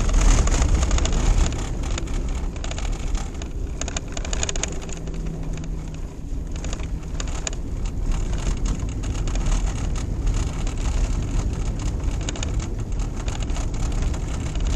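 Steady road noise inside a moving vehicle on a snowy road: a low rumble of engine and tyres with an even hiss over it.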